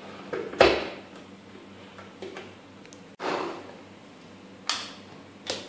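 A stainless-steel mixer-grinder jar knocks and clunks as it is handled on its base: four sharp knocks, each dying away quickly, with quiet between. The motor is not heard running.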